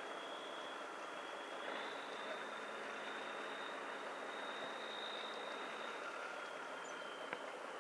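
Steady engine drone from the small dock boat towing the ship, with a thin high whine that shifts slightly in pitch a couple of times.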